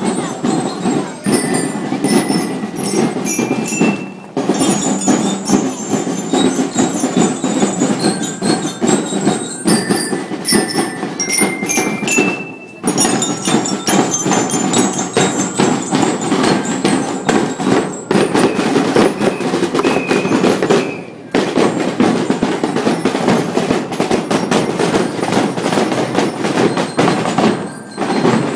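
A marching drum and lyre band playing: snare drums beating a steady march with bell-lyres (glockenspiel) ringing out a stepped melody over them. The playing breaks off briefly three times.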